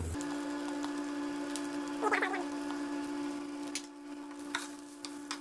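A steady low-pitched hum, with a short wavering chirp about two seconds in and a few faint light clicks near the end.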